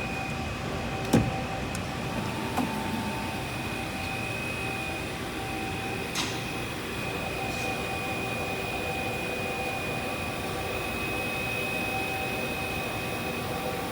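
Mazak MTV 515/40N CNC vertical machining center running with a steady hum and a high whine. A sharp knock comes about a second in, with lighter clicks near three and six seconds.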